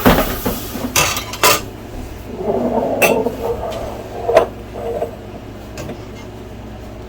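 Kitchen clatter of metal utensils and cookware: a handful of sharp knocks and clinks in the first half, with a rougher continuous rubbing stretch in the middle.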